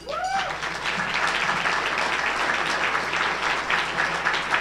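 Audience applauding, starting right away and holding steady throughout.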